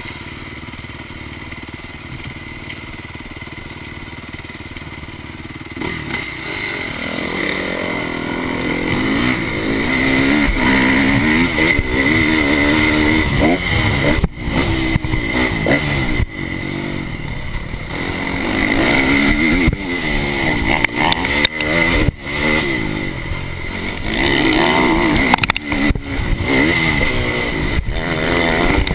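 Honda motocross bike engine idling for about six seconds, then pulling away and revving hard, its pitch rising and falling over and over with a few brief dips as the throttle comes off.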